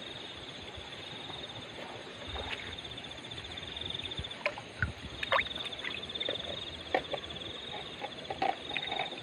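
Shallow stream water splashing and sloshing as an otter wades and dips its head hunting along the muddy bank, with several sharp splashes and knocks, the loudest about five and seven seconds in. A steady high pulsing trill of the night chorus runs behind.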